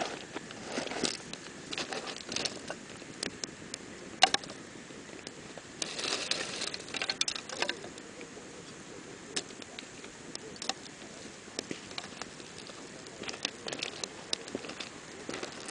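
Wood campfire crackling, with irregular sharp pops and snaps and a busier stretch of crackling about six seconds in.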